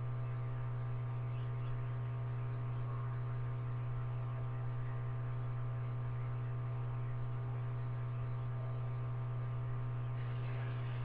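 Steady low electrical mains hum, with a thinner buzz of overtones above it, unchanging throughout.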